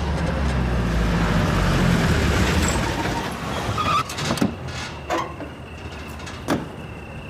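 A car's engine rumbles as it pulls up and fades away over the first three seconds. A few sharp clicks and knocks follow, and a steady high cricket chirring comes in about four seconds in.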